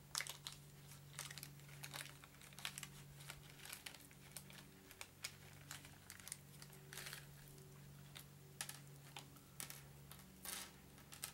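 Faint crinkling of a thin plastic zip bag and light, irregular clicks of tiny plastic miniatures being handled, over a low steady hum.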